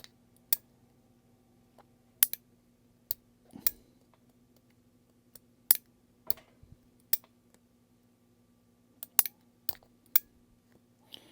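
Sharp, irregular clicks, about a dozen, as a small hand tool works at a tight corner of a G-Shock watch being taken apart. A faint steady hum runs underneath.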